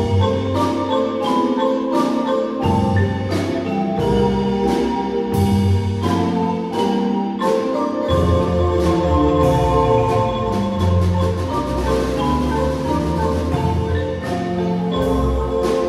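Marimba music: struck wooden bars playing a melody over bass notes, with rapid rolled strikes on held notes through the middle.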